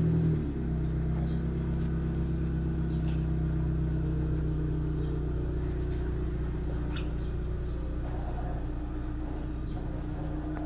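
Steady low mechanical hum of an engine or motor running at a constant speed, with a few faint ticks over it. It steps down slightly in level about half a second in.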